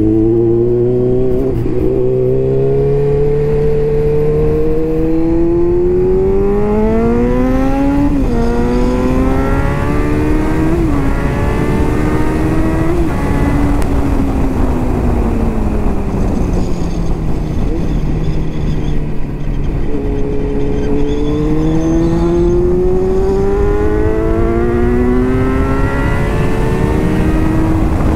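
Kawasaki Z900's inline-four running through a full Jeskap aftermarket exhaust, accelerating hard with the pitch climbing through quick upshifts at about 8, 11 and 13 seconds in. It then falls away steadily as the bike slows, and climbs again under acceleration in the last third.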